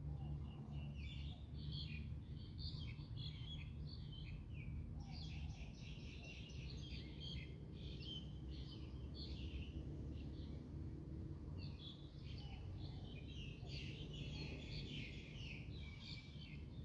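Birds chirping and twittering in several bouts over a steady low rumble.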